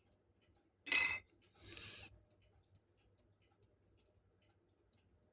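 Small parts of a mini cuckoo clock being handled and fitted together. There is a sharp click and scrape about a second in, then a brief rustling scrape, with faint light taps from handling.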